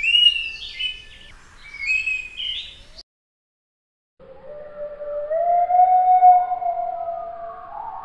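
Bassian thrush song: a phrase of clear whistled notes stepping up and down in pitch for about three seconds. After a pause of about a second, the same song is played slowed down, far lower in pitch, as long, drawn-out gliding tones.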